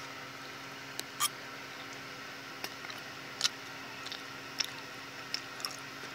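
A metal fork clicking and scraping against a plate as food is picked up, about seven short sharp clicks spread out over a steady low hum.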